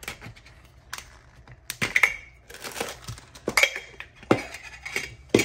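A Funko Soda tin can being opened: a run of sharp metallic clicks and scrapes as its pull-ring lid is peeled off, the loudest about two seconds in and again about three and a half seconds in, each ringing briefly. Between them the figure's plastic bag rustles as it is slid out of the can.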